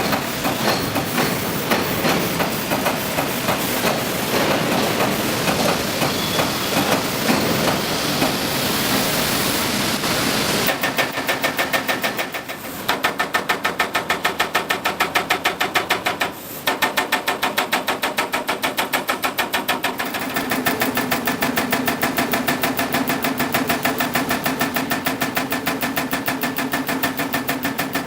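CNC turret punch press punching sheet metal. A dense, irregular clatter gives way about a third of the way in to a fast, even run of sharp hits, about five a second, broken by two short pauses. In the later part a low steady hum runs under the hits.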